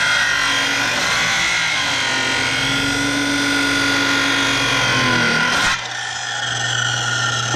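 Corded circular saw cutting through a pressure-treated pine deck board, steady and loud. A little before six seconds in the cut finishes and the sound drops to the quieter hum of the saw running free.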